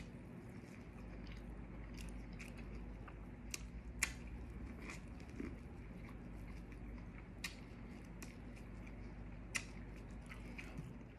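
A person biting and chewing boiled corn on the cob: irregular sharp crunchy clicks of the bites and mouth sounds, scattered through, over a steady low hum.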